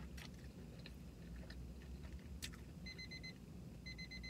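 A timer alarm goes off about three seconds in: groups of four quick, high beeps that repeat about once a second.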